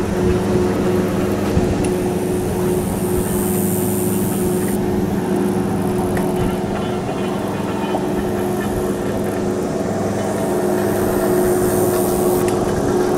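A steady engine hum, running at an even pitch throughout, with no gunshots.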